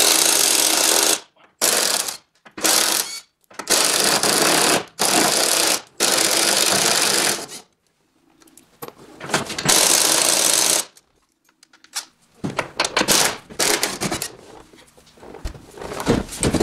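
Cordless impact wrench hammering in seven short bursts, backing out a car door's hinge bolts. Over the last few seconds there are irregular metal clinks and rattles as the door comes loose.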